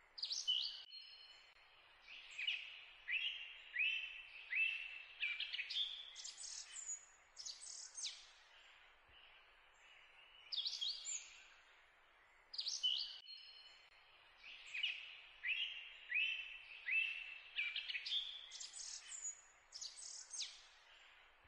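Birdsong: a run of quick chirps and short falling whistled notes, the same phrase of calls coming round again about every 13 seconds like a looped recording, over a faint hiss.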